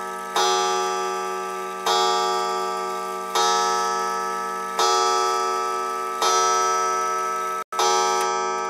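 Pendulum wall clock striking the hour on its coiled wire gong: six strikes about a second and a half apart, each ringing and slowly fading before the next.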